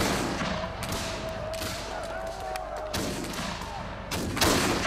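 Flintlock muskets firing: a shot at the start, another about three seconds in and the loudest near the end, each trailing off into a long noisy rumble.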